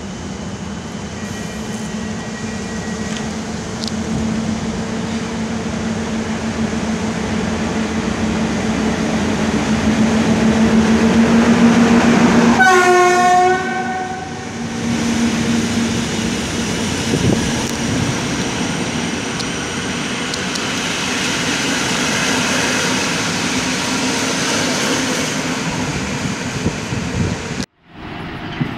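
An EP07 electric locomotive hauling a passenger train approaches and passes underneath, its running noise growing louder. About halfway through it gives a horn blast of about a second, its pitch dropping as the locomotive goes by. The carriages then rumble past until the sound cuts off abruptly near the end.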